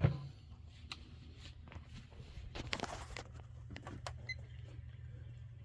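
Midea mini fridge compressor running with a low, steady hum, which is very quiet. Handling knocks and rustles lie over it, with a sharp thump right at the start.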